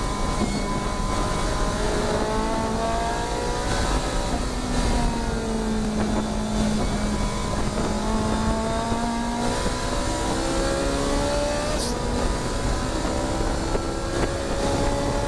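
Ferrari 458 Challenge race car's 4.5-litre V8 engine running at speed. Its pitch climbs steadily and then drops back several times as it goes through the gears.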